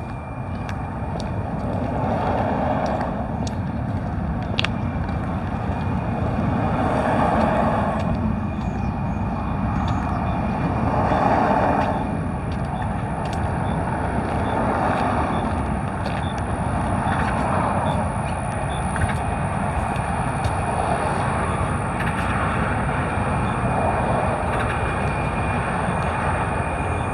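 Steady road traffic from a nearby street, swelling every few seconds as vehicles pass.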